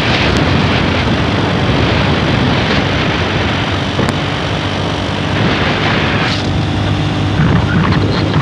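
Loud, steady rush of wind and road noise from a vehicle travelling at speed along a highway, with a low, steady engine hum underneath.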